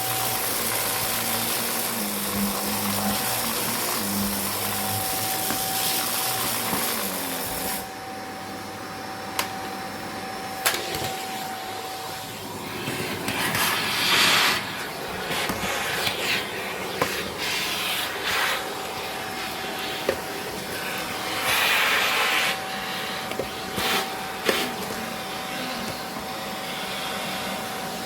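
Vacuum cleaner running, a steady motor whine under a rush of air. The level drops about eight seconds in, and the suction noise surges louder twice, around the middle and again near the end, with a few sharp clicks.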